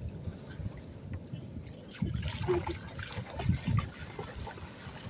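Shallow seawater splashing unevenly as a loaded kayak is pushed through the shallows by someone running in the water behind it.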